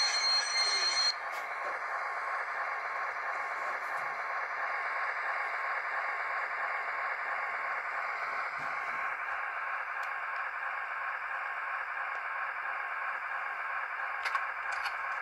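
Sound decoder in an H0-scale model of a ČSD T477 diesel locomotive playing its diesel engine running sound through the model's small speaker, a steady hissy drone. A higher hiss cuts off about a second in, and a few light clicks come near the end.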